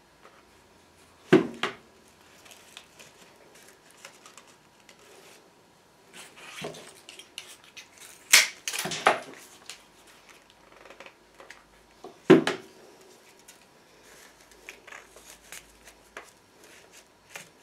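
Craft tools and materials being handled on a table: a few sharp clicks and knocks, about a second in, around the middle and again about two-thirds through, with quieter small clicks and rustling between.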